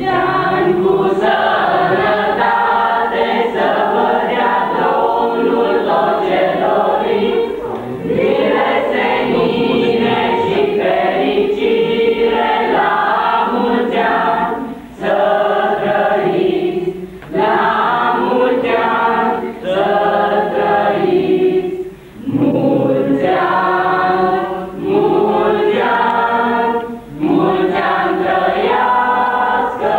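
A choir singing a song together, phrase after phrase with brief pauses between lines.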